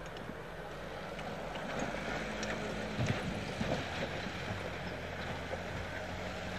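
Engine of an off-road 4x4 running steadily at low revs as it drives down a dusty dirt hill, with a few sharp knocks about three seconds in.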